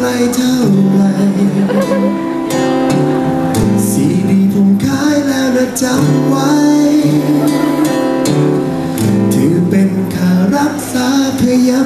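A man singing a Thai song while strumming an acoustic guitar, his voice through a microphone.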